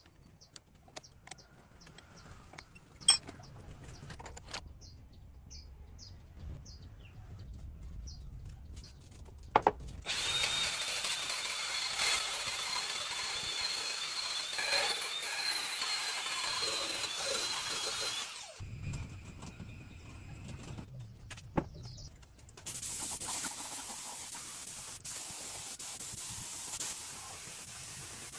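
Workshop work on a rusty motorbike: a few light knocks, then a power tool runs for about eight seconds with a steady high whine. From about twenty-three seconds a steady hiss takes over.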